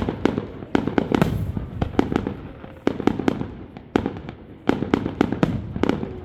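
Fireworks going off: a quick, irregular string of sharp bangs and cracks, several a second, each with a short echoing tail, easing briefly near the middle before picking up again.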